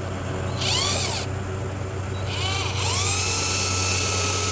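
Power drill with a T15 Torx bit driving bumper screws in: a short run about half a second in, then a longer run from about two seconds in. Each time the motor whine rises in pitch and then holds steady.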